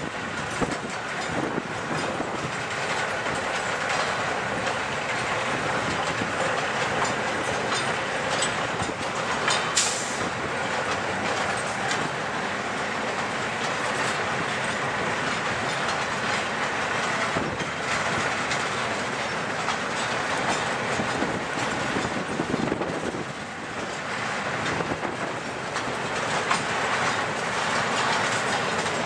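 A rail train (flatcars loaded with long welded rails on racks) rolling steadily past, with continuous wheel rumble and clickety-clack over the rail joints. A brief sharp high-pitched sound comes about ten seconds in.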